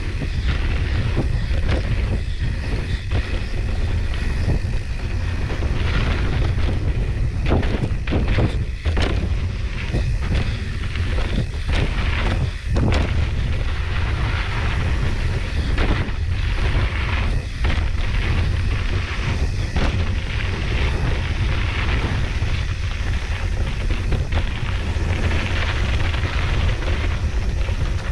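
Mountain bike riding a rough dirt trail: wind buffeting the microphone, with frequent knocks and rattles as the bike jolts over the ground.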